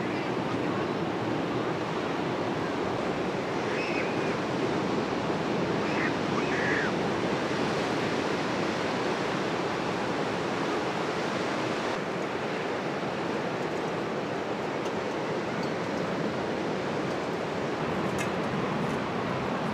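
Ocean surf breaking on a sandy beach: a steady, continuous wash of noise without breaks, with a few faint distant voices.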